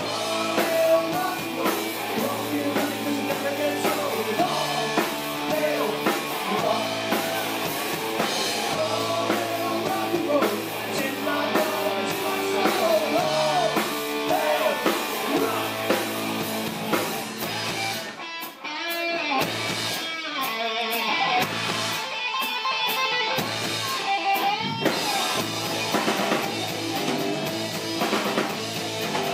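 Live rock band playing electric guitars, bass and drum kit, with a man singing over them. About eighteen seconds in, the music breaks into a stop-start passage with short gaps, then the full band comes back in.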